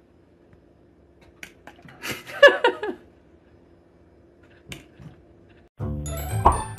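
A cat meowing briefly about two seconds in, with a few faint sharp clicks around it. Background music with high chiming notes starts near the end.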